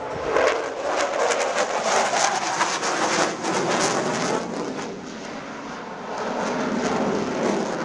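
Fighter jet engine roar from a jet flying a display overhead, a continuous rushing noise that eases a little about five seconds in and swells again near the end.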